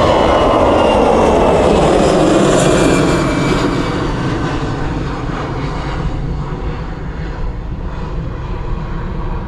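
Edelweiss Airbus A320 jet engines at take-off thrust as the airliner climbs out and passes: a loud roar with a whining tone that slides down in pitch. After about three seconds it fades to a duller rumble as the aircraft moves away.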